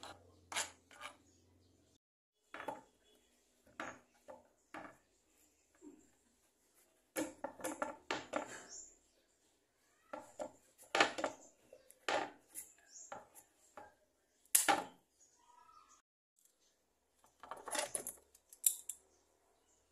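Knife and hand peeler scraping the rind off pieces of squash against a wooden cutting board: irregular short scrapes and knocks separated by brief pauses.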